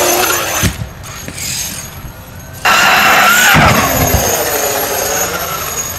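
Electric RC monster truck's motor whining as the throttle is worked during a ramp jump, its pitch sweeping up and down. It drops away about a second in and comes back loud near the middle, with a few short thuds.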